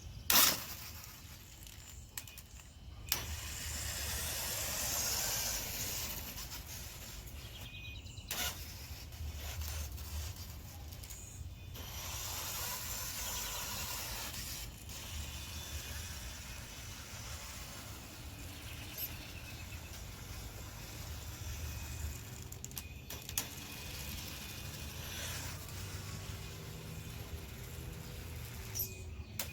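Large-scale brushless electric RC monster truck being driven, its motor and tyres on the ground giving a hissing running noise, in several short clips cut together, with a sharp click just after the start.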